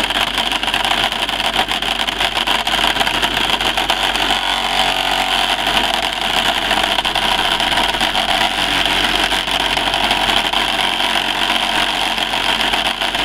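Small gasoline water pump engine running steadily, with water spraying from a pipe onto gravel in a classifier bowl.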